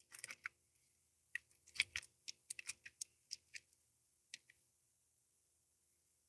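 Faint, irregular small clicks and taps of guitar tuner hardware being handled and fitted, about fifteen over four seconds, stopping a little past the middle.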